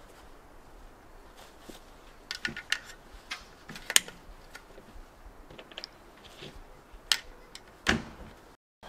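Cartridges being pressed by hand into an AK rifle magazine, each round going in with a sharp metallic click; a cluster of clicks comes about two to three seconds in, the loudest about four seconds in, and a few more near the end.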